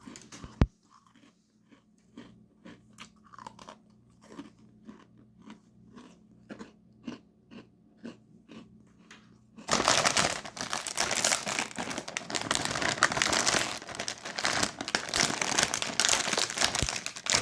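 Chewing an Oreo Reese's peanut-butter-cream sandwich cookie: a sharp click just after the start, then crisp crunches at about two to three a second. Some ten seconds in, a much louder, continuous crackling takes over for the rest.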